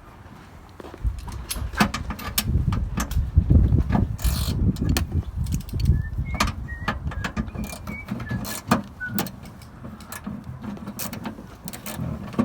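Clicks, knocks and clanks of hand work on a car's rear end, with a run of low thuds through the first half and a few short squeaks in the second half.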